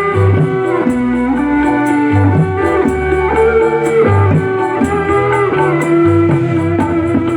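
Instrumental music played loud: a plucked-string melody of held notes over a moving bass line, with a steady beat ticking on top.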